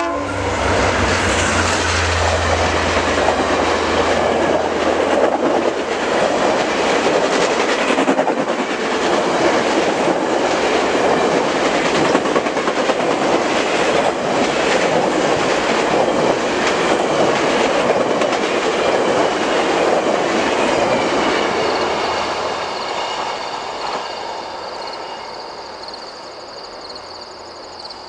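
VIA Rail's Canadian passenger train passing close by: diesel locomotive engine noise in the first few seconds, then a long string of passenger cars rolling past with a clickety-clack of wheels over rail joints. The sound fades over the last several seconds as the train moves away.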